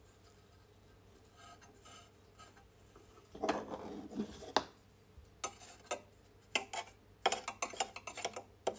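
Light metallic clicks and scrapes, with some fabric rustle, as a knit binding strip is pushed through a stainless-steel Nippo NB-4A binder attachment with a thin metal tool. A brief rustle comes about three and a half seconds in, then a run of sharp little clicks from about five and a half seconds on.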